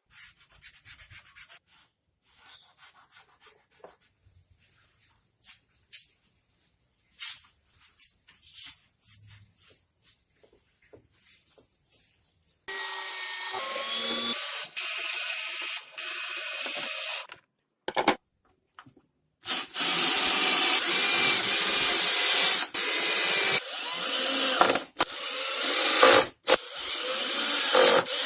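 Wood being sanded. The strokes are faint and scattered at first, then become a steady run about halfway through. In the last third they turn into loud, hissing stretches with brief pauses.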